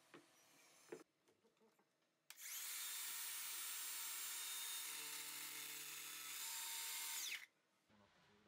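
Two light knocks, then a Makita 18V cordless circular saw spins up about two seconds in. It runs for about five seconds with a high whine while making a test cut through an MDF board, and is switched off and winds down near the end.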